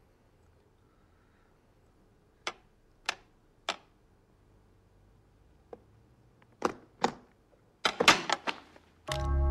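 Sharp metallic clicks and knocks of a pistol being handled against wood: three evenly spaced clicks, then a couple more, then a quick cluster of them. Music comes in right at the end.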